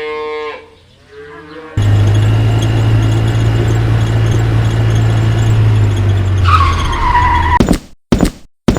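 Car engine running loud and steady, ending in a falling tyre squeal, then a few quick swishes near the end.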